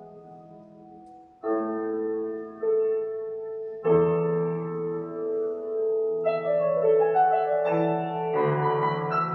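Grand piano played solo: a quiet chord fading away, then full chords struck and held about a second and a half in, again a second later and at about four seconds, before a busier, louder passage of higher notes near the end.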